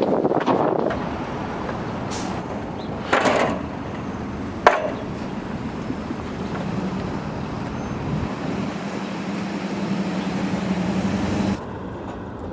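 Steady vehicle and traffic noise with a low hum, a brief clatter about three seconds in and a sharp knock near five seconds.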